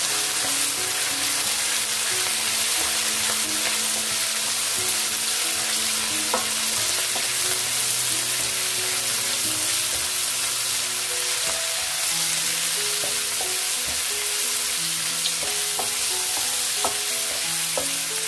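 Sliced onions, ginger, green chillies and curry leaves sizzling steadily in hot oil in a wok while being stirred and tossed with a spatula, with a few sharp taps of the spatula against the pan.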